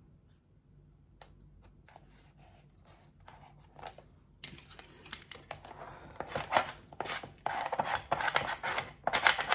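Crackly rustling and scraping of cut adhesive lettering and its backing sheet being handled, rubbed down and peeled away by hand. A few faint clicks at first, then it gets louder and busier from about halfway through.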